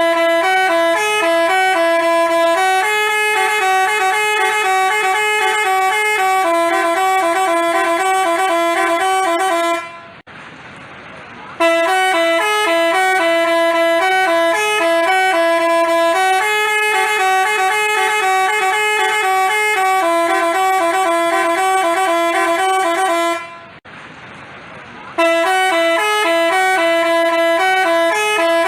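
Basuri telolet multi-tone bus horn playing a tune of stepped notes, several tones sounding together, with two short breaks about ten and twenty-three seconds in.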